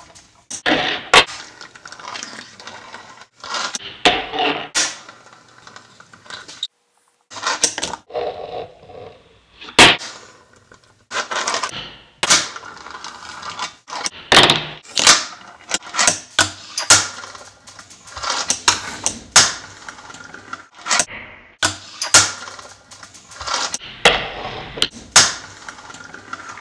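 Fingerboard tricks on a tabletop: a run of sharp clacks as the small board is popped and lands, with short scrapes and wheel rolling between the impacts. The clacks come irregularly, several a second at the busiest, with a brief pause about seven seconds in.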